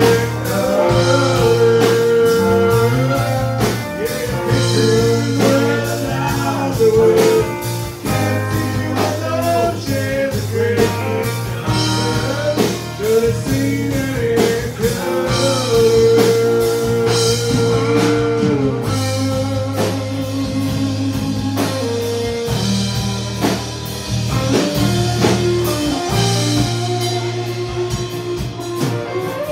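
Live country band playing an instrumental passage: a bowed fiddle carries the sliding lead over strummed acoustic guitar and drum kit. Near the end a Telecaster-style electric guitar plays lead.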